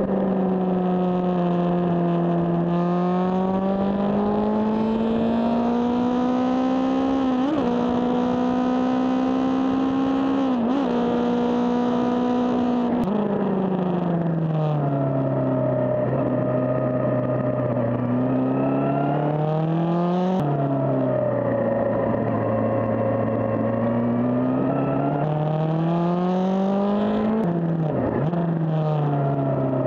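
Suzuki GSX-R600's inline-four engine running at road speed, its pitch rising and falling slowly with the throttle. About five times the note breaks sharply up or down as gears are changed.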